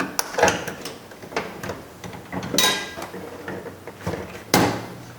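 Flat-blade screwdriver prying a small plastic trim piece out at the door's window crank handle: irregular clicks and taps, one with a brief metallic ring in the middle and a sharper click near the end.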